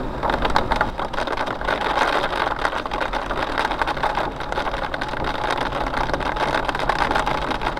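Hail pelting the car's body and windshield, heard from inside the cabin as a dense, continuous clatter of small impacts, over the sound of the moving car.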